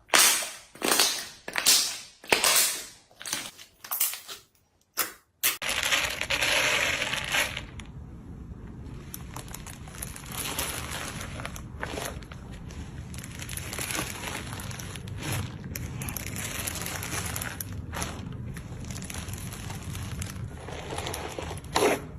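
Slime being squeezed and pressed by hand, crunching and crackling: first a run of separate crunches about every half second, then, after about five seconds, a continuous crackle over a low hum.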